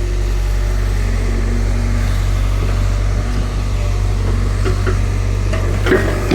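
Hydraulic excavator's diesel engine running steadily, with a sharp metallic knock near the end.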